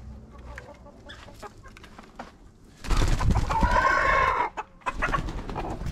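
Hens clucking around the coop, with one hen's drawn-out call over a burst of rough noise about three seconds in.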